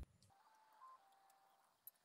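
Near silence: room tone, with a faint short tone about a second in and a tiny click near the end.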